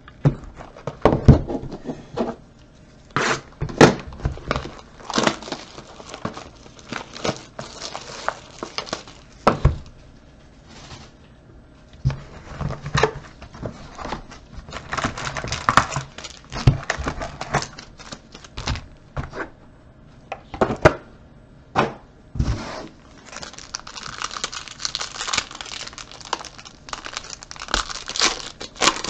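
Trading-card pack wrappers crinkling and tearing, mixed with many short taps and knocks from cards, packs and a card box being handled on a table. The crinkling is densest about halfway through and again near the end.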